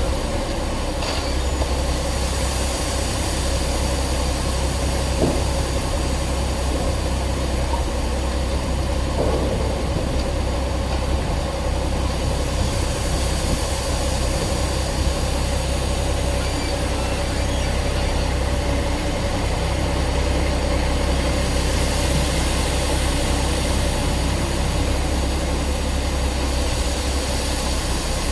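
Heavy construction machinery's diesel engine running steadily: a low rumble with a steady mid-pitched whine over it.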